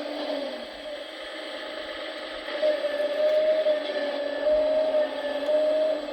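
Hydraulic pump of a 1/14-scale RC Volvo 360L excavator whining steadily, then getting louder and slightly higher in three surges from about halfway in, as the hydraulic functions are worked under load.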